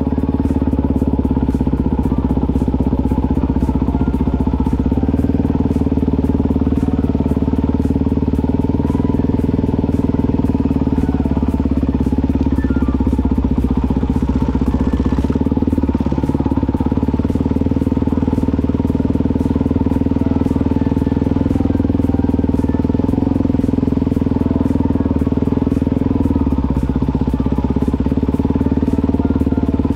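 Dirt bike engine running steadily while riding along, its note holding nearly constant throughout.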